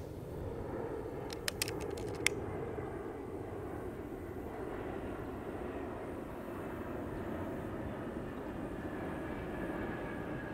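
A quick cluster of sharp metallic clicks about one and a half seconds in, and one more just after two seconds: a .22 PCP air rifle's action being worked between shots. Under them, a steady low drone of outdoor background noise.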